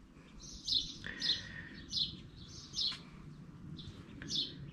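A bird chirping repeatedly: short, high chirps that slide downward, coming about every half-second to a second.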